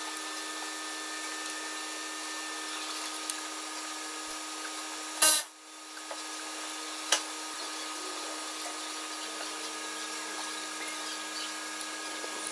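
Steady workshop hum with a few sharp metallic clicks from hand work on the exhaust while the new particulate matter sensor is fitted, the loudest about five seconds in and a smaller one about two seconds later.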